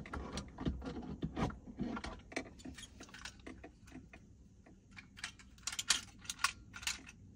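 Plastic clicks and rattles of a rear-view-mirror phone holder bracket being worked onto a car's mirror, a tight fit. A quicker run of sharper clicks comes about five to seven seconds in.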